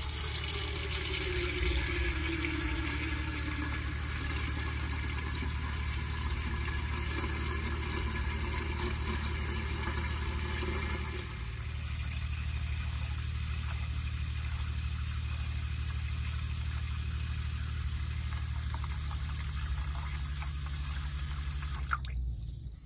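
A stream of water from a hand-held tap nozzle pours and splashes into the stainless steel upper tank of a gravity water filter, filling it around the ceramic filter candles, over a low steady hum. The flow breaks off briefly near the end.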